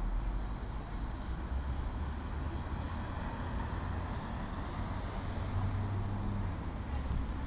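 Steady low rumble of distant city traffic, with a couple of faint clicks near the end.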